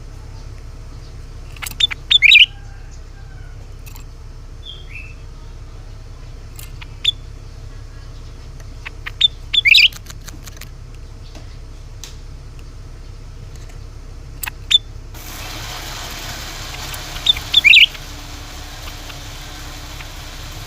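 Cucak ranting bird giving short, sharp chirps that sweep down in pitch, in loud clusters of two or three notes repeated every few seconds, over a steady low hum.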